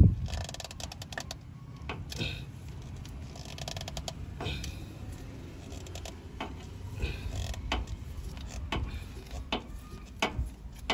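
A strap-type filter wrench creaks, scrapes and clicks against the spin-on fuel filter canister of a Case 770EX backhoe loader as the filter is turned loose, with a sharp knock right at the start.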